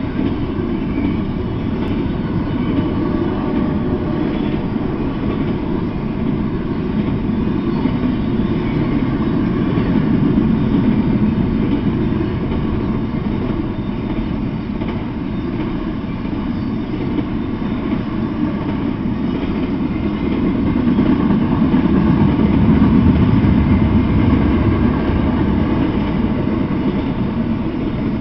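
Double-stack intermodal freight train rolling past: a steady low rumble of wheels on rail. It swells louder about ten seconds in and again later, for a few seconds.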